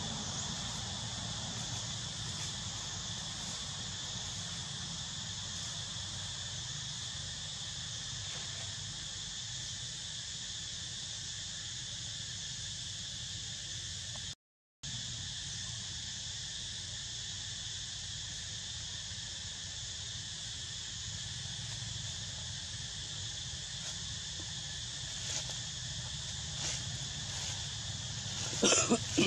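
Steady high-pitched drone of forest insects, with a low hum underneath. The sound cuts out for an instant about halfway, and a short, loud sound comes just before the end.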